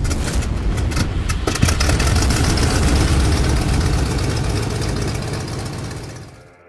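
Sound effect for an animated logo intro: a loud, deep rumble with crackling that fades away near the end.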